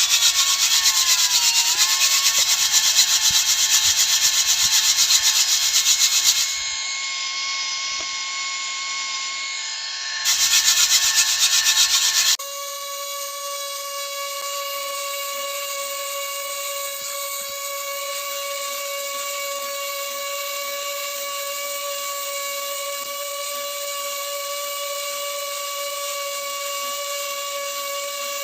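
Small electric motor running with a steady high whine. A loud, harsh hissing noise lies over it for the first six seconds or so, stops, then comes back briefly about ten seconds in.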